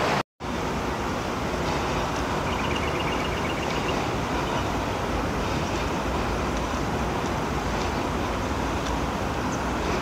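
Steady rushing outdoor ambience with no clear single source, broken by a brief dropout just after the start. Around three seconds in a quick run of small high chirping notes sounds, and a few short high chirps come near the end.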